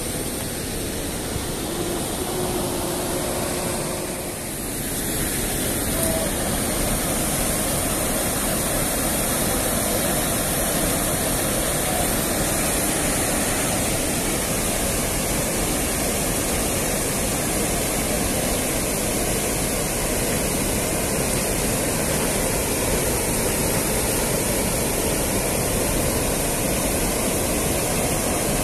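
Water pouring over a concrete river weir: a steady, even rush that grows louder after a cut about five seconds in.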